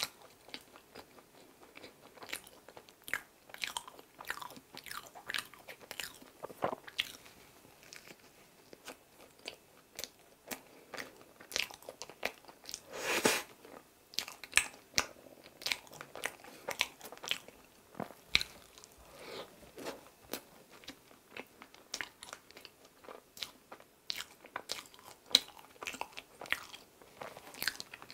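Close-miked chewing of a soft cream-filled mammoth bread: a steady run of small wet mouth clicks and smacks as it is eaten, with one louder, longer noisy sound about halfway through.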